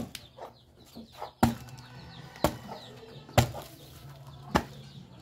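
Knife chopping at the rind of a small jackfruit while peeling it: five sharp knocks about a second apart.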